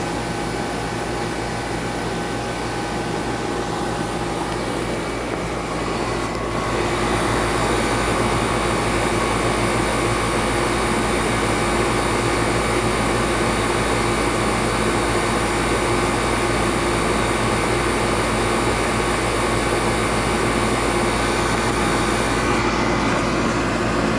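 Heating equipment running steadily, a continuous mechanical hum with several held tones, growing louder and fuller about six and a half seconds in as it ramps up.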